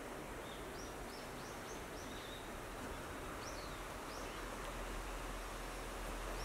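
A small bird calling: a quick run of about ten short, high chirps in the first four seconds, over a steady outdoor hiss.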